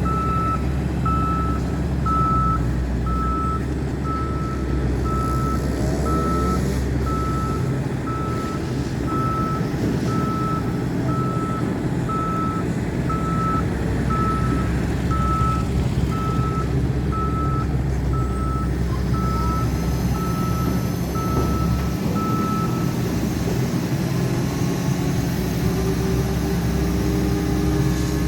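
Rotary drilling rig's diesel engine running with a steady low drone. Over it, a warning alarm sounds a regular series of single-pitch beeps, about one and a half a second, then stops about 23 seconds in.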